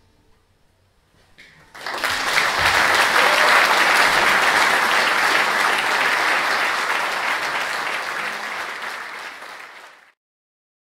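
Concert audience applauding, starting suddenly about two seconds in, holding steady, then tapering slightly and cutting off abruptly near the end.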